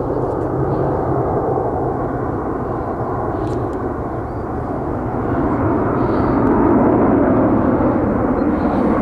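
Swiss Boeing 777-300ER airliner passing overhead: a steady jet-engine rumble from its two GE90 turbofans that grows louder about halfway through.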